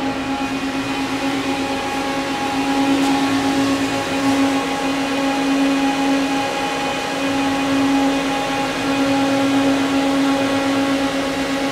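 Powered-up Fadal VMC 15XT vertical machining center running with a steady hum: a constant pitched drone over a mechanical whir.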